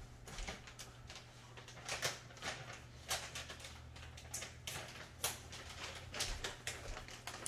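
Faint, scattered clicks and rustles of kitchen things being handled out of view while a bag of pecans is fetched, over a steady low hum.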